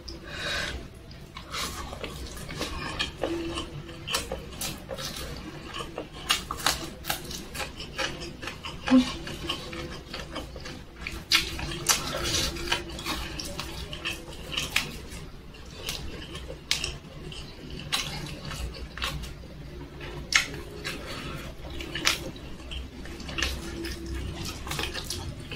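Close-miked eating by hand: wet chewing and lip smacking of chicken and rice, with many sharp irregular clicks and small taps throughout.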